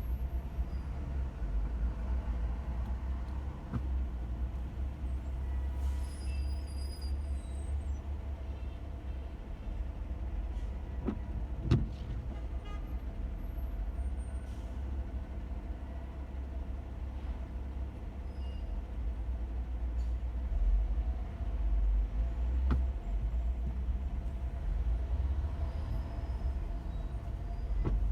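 Steady low rumble of a car driving in slow, congested city traffic, heard from inside the cabin, with a faint steady hum and a few scattered short clicks, the loudest about twelve seconds in.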